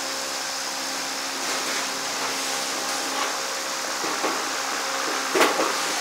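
Steady hiss with a faint low hum, with a few short metallic clicks from a wrench working the pulley nut of a corn thresher, the loudest about five and a half seconds in.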